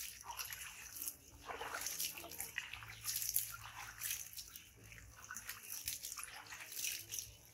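Water splashing and dripping as a macaque's wet, soapy fur is scrubbed by hand, in a run of irregular splashes.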